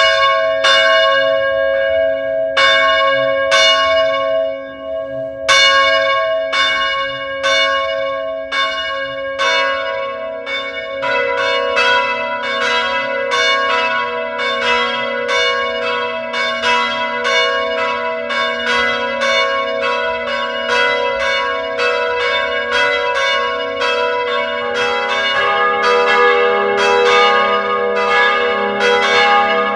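Church bells ringing: bells struck one after another at an even pace, about one strike a second, each left to ring on. About ten seconds in more bells join and the strikes come faster and overlap, and a lower bell joins near the end.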